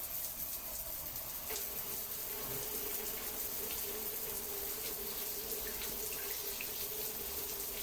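Steady rush of running water, with a faint steady tone joining in about one and a half seconds in.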